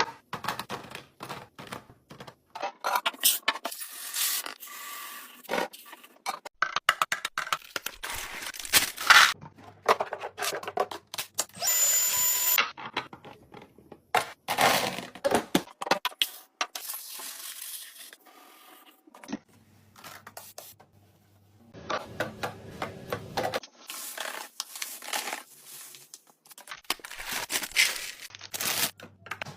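Groceries and containers being handled while a fridge is restocked: an irregular run of clicks, knocks and taps, with bursts of plastic and packaging rustling, tearing and scraping.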